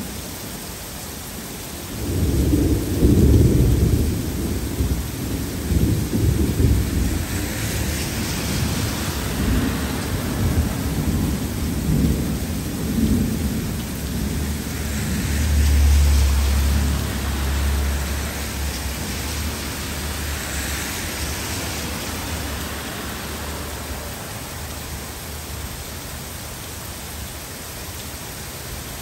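Heavy rain falling steadily, with a long roll of thunder that breaks in suddenly about two seconds in. The thunder rumbles deep and loudest in its first few seconds, swells again midway, and dies away over about twenty seconds.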